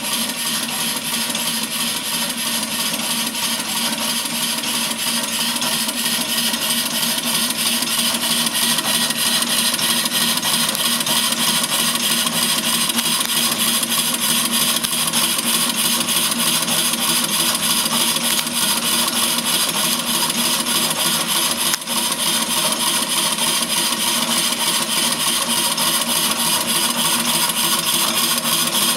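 Scale model of the 1803 Pen-y-Darren locomotive running on compressed air at 2 bar, wheels spinning free on a test stand: hissing air exhaust pulsing in a fast, even rhythm. It runs steadily, with a brief dip about three quarters of the way through.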